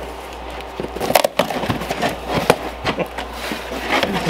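Cardboard box being opened by hand and its contents pulled out: irregular crackling, tearing and knocks of cardboard and packaging, starting about a second in.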